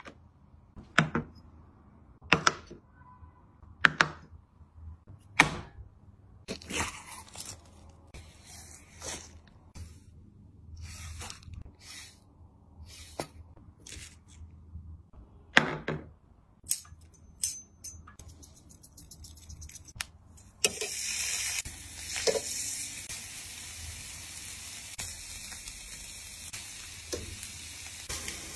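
Sharp knocks about every second and a half, then scattered taps and clicks from food preparation. About two-thirds of the way in, a steady sizzle starts: seasoned tongue slices cooking on a hot grill.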